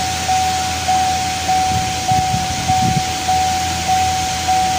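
Electronic warning chime beeping steadily, one even tone about every 0.6 seconds, over a steady background hum.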